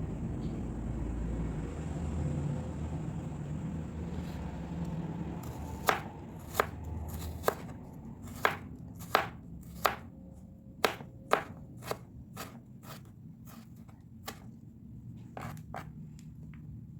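Knife chopping on a cutting board: a run of sharp, separate strokes, about one or two a second, starting about six seconds in and stopping near the end, over a low rumble.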